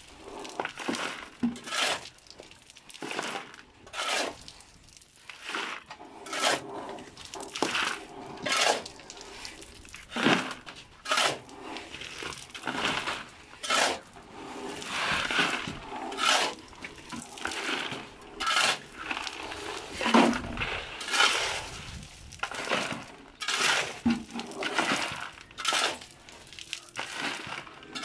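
Steel shovel scraping across a concrete floor and scooping loose gravel, the stones rattling as they are tipped into plastic buckets. Irregular strokes every second or two.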